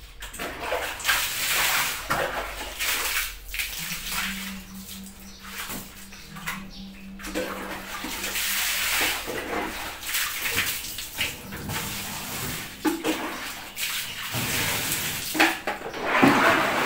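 Water splashing and pouring in a plastic bucket and basin while clothes are hand-washed, coming in irregular surges. A low steady hum sits underneath for a few seconds near the middle.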